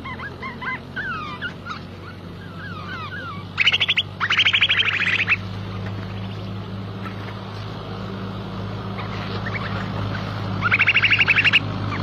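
A flock of small birds calling. Short chirps and whistles come first, then loud harsh rattling chatter breaks out a few seconds in and again near the end. A steady low hum runs underneath.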